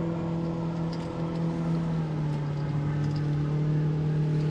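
Boat motor running steadily, a low even hum that drops slightly in pitch about two seconds in, with a few faint light ticks over it.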